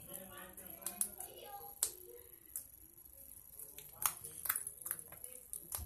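Hands kneading and squishing glittery slime, giving a scatter of short wet clicks and pops.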